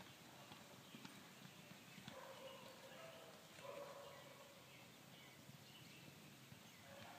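Two horses galloping in a distant pasture, heard only faintly over a quiet outdoor background. A couple of short, faint pitched calls come about two and three and a half seconds in.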